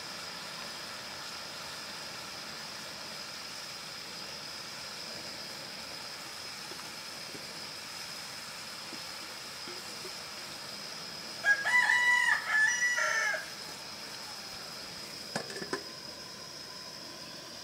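A rooster crows once, a loud pitched call of about two seconds broken into a few parts, about two-thirds of the way in. Under it runs a steady faint high hiss, and a few light clicks follow near the end.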